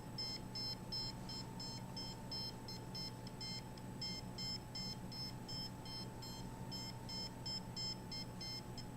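Handheld RF/microwave meter giving its audio signal: rapid, uneven short high beeps, several a second, that track the microwave radiation it is picking up. A steady faint hum runs underneath.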